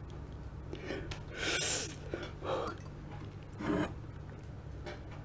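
A person gasping and sniffing from the burn of very spicy noodles: three short, sharp intakes of breath, the longest about a second and a half in, over a steady low hum.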